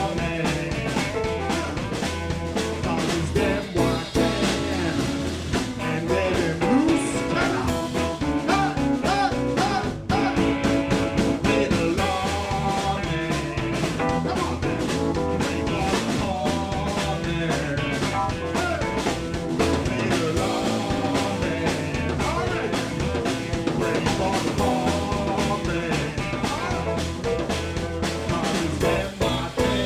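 Live blues band playing a driving groove with drum kit, bass, electric guitar and keyboards, with no lead vocal line.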